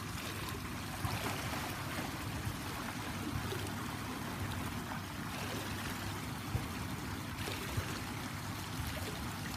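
Water running down a pool water slide and pouring steadily into the pool.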